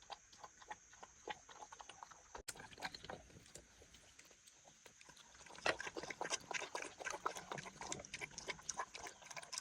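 An animal eating rice noodles: a run of quick, irregular wet smacking and chewing clicks, getting busier about halfway through.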